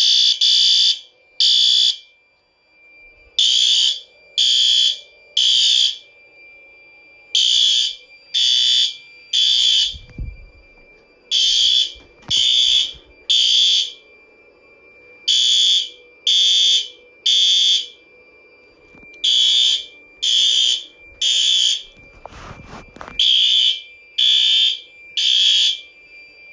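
System Sensor P2R fire alarm horn-strobe sounding the temporal-three evacuation pattern: three short, loud blasts about a second apart, then a pause, repeating about every four seconds. The system is in alarm after the pull station was pulled.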